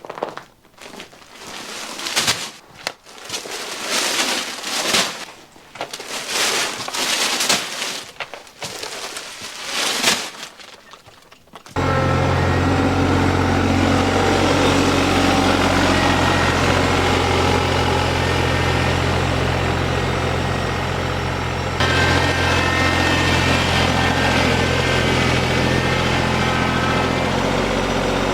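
Irregular bursts of rustling and clatter for about the first twelve seconds. Then a vehicle engine cuts in suddenly and runs steadily at an even low pitch, with a slight step in its sound a little past twenty seconds.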